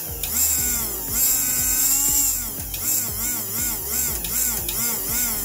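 Small electric motor of a Tyco HO-scale model locomotive running on test, its hum swinging up and down in pitch about two to three times a second over a high hiss, then cutting off at the end.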